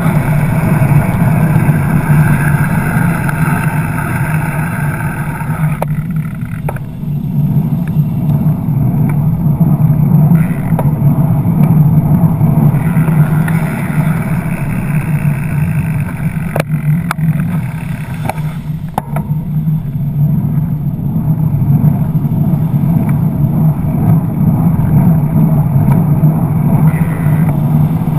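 Steady drone of congested road traffic, the engines of cars and buses idling and creeping close alongside. A few sharp clicks come about two-thirds of the way through.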